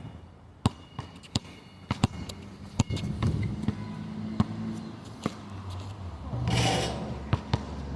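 A dozen or so sharp knocks at irregular intervals over a low steady hum, with a brief hissing rush about six and a half seconds in.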